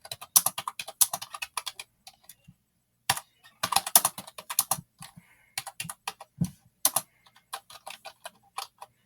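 Typing on an ONN computer keyboard: irregular runs of key clicks, several keys a second, broken by pauses of up to about a second.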